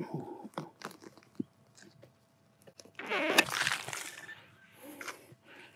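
Serrated digging knife cutting into grass turf and soil. Scattered small scrapes and clicks, then a louder tearing cut about three seconds in that lasts about a second.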